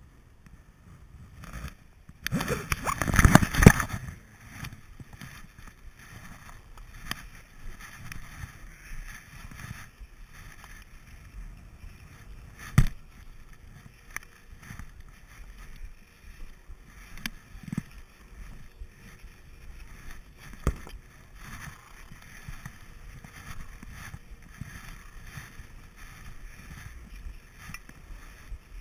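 Handling noise of a GoPro Hero2 in its housing: a loud burst of rubbing and fumbling about two to four seconds in, then low rumbling with a few sharp knocks, the loudest a little before halfway.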